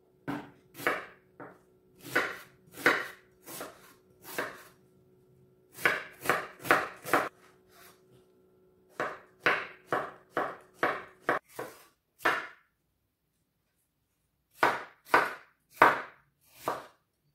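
Chef's knife chopping vegetables on a wooden cutting board, onion, zucchini and red bell pepper being diced: sharp knife strokes one or two a second, in runs with short pauses between, and a silent stretch of a couple of seconds past the middle.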